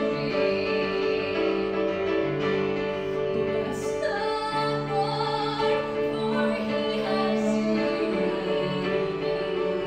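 A woman singing with piano and cello accompaniment, the cello holding long low notes beneath the melody.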